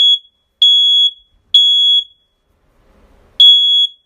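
Fire alarm sounding: a high, steady electronic beep about half a second long, repeating in groups of three with a longer pause between groups, the temporal-three evacuation pattern.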